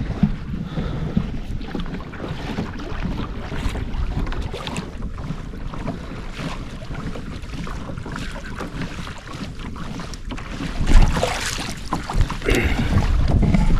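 Wind buffeting the microphone, with water against a kayak hull and scattered small knocks. There is one loud knock about 11 seconds in.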